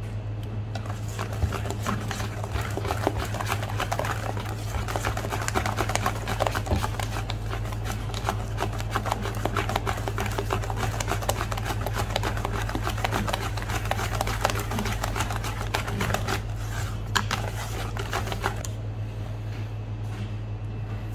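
Wire whisk beating pancake batter in a bowl: fast, continuous clicking and scraping of the wires against the bowl, which thins out near the end. A steady low hum runs underneath.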